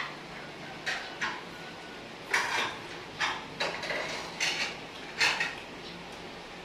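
Plates clinking and scraping as people eat with their fingers: a string of short, irregular taps and scrapes.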